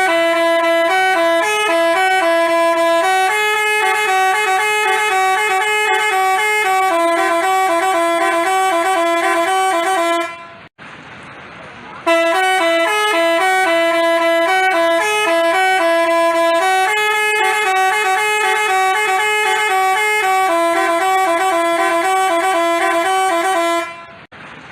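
Basuri-type telolet bus horn playing a multi-note tune, stepping between steady pitched notes. It plays in two long phrases with a short break about ten seconds in, and cuts off shortly before the end.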